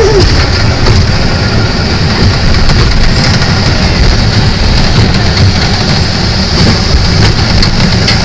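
Amusement-park ride in motion: a loud, steady rumble and rush that runs without a break.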